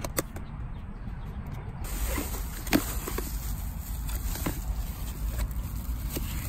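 A hard-sided cooler box being opened and unpacked by hand: scattered clicks and knocks from the lid, then rustling as an insulated foil liner is peeled back and an ice pack lifted out, over a steady low rumble.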